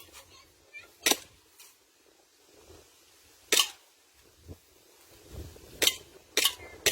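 Airsoft Glock pistol firing single shots, each a sharp crack: four shots, about a second in, around three and a half seconds, and two in quick succession near the end.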